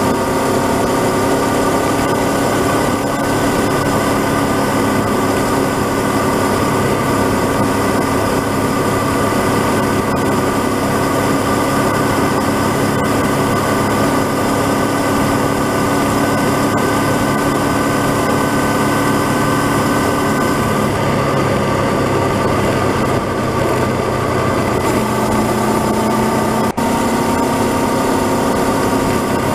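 Honda CB500X 471 cc parallel-twin engine running steadily at cruising speed under wind and road noise. Its note drops slightly about two-thirds of the way through, and there is one brief break in the sound near the end.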